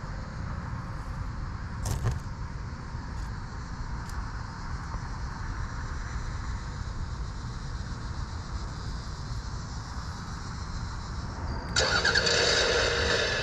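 Steady low background rumble with a single click about two seconds in. Near the end a radio-controlled model's motor starts abruptly and runs with a steady whine.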